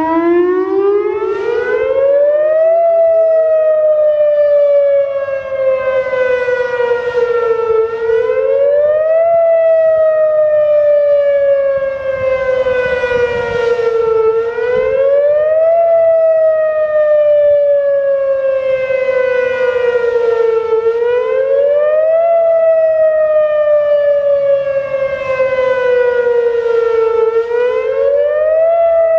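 Whelen WPS 2810 electronic outdoor warning siren sounding its wail tone in a test. The pitch climbs quickly, falls slowly, and repeats about every six and a half seconds.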